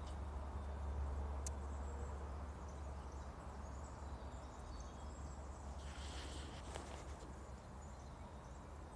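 Faint outdoor background: a steady low rumble under thin, faint high chirps, with a sharp click about a second and a half in and a brief rustle about six seconds in.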